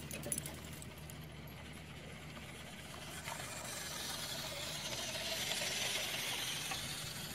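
Radio-controlled model military truck driving over sandy dirt: its small electric motor and gearbox whine and its tyres hiss over the sand. It gets louder as it passes close by about five to six seconds in, then fades.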